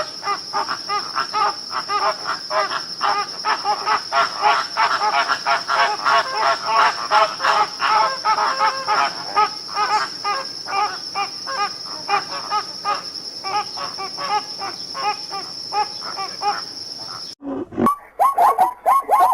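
A chorus of quick, repeated animal calls over a steady, high insect drone. About 17 seconds in it cuts abruptly to a different animal's rapid, bright calls.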